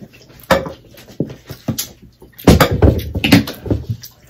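A string of knocks and clatters from dishes, utensils and bottles handled on a dining table: a few single knocks, then a louder cluster about two and a half seconds in.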